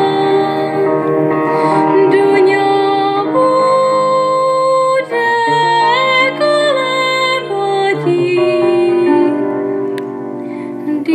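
A young woman singing a Horňácko folk song in long held notes, sliding between pitches, over instrumental accompaniment. Near the end her voice stops and the accompaniment plays on more quietly.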